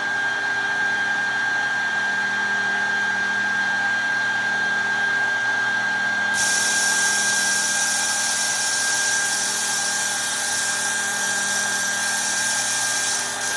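Edgebander running with a steady machine hum and a fixed high whine. About six seconds in, a loud steady hiss of compressed air starts suddenly from the disconnected pneumatic line to the pre-mill air cylinder. The hiss shows that the line gets air pressure once the S5 switch is tripped.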